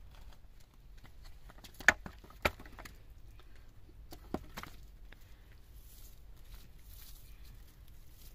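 Scattered knocks and light clatter of flat stones and sticks being handled by hand, with two sharper knocks about two seconds in and another a little past the middle.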